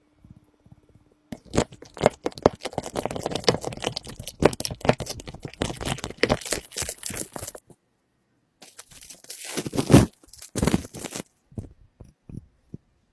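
Slime being squeezed and kneaded by hand: a dense, crunchy crackle of small pops and squelches. It stops for about a second partway through, comes back briefly, then thins to a few scattered pops near the end.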